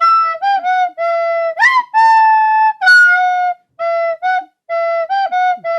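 A solo flute-like wind instrument playing a simple melody of short and held notes, with small upward scoops into some of the notes.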